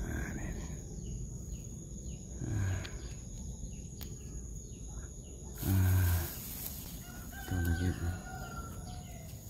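A rooster crowing, one drawn-out crow near the end. Over it come close rustles and short low sounds about six and eight seconds in, the loudest of them about six seconds in.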